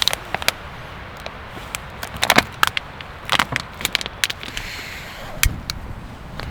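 Irregular sharp clicks, taps and crackles from camp cooking gear and food packaging being handled, over steady wind noise.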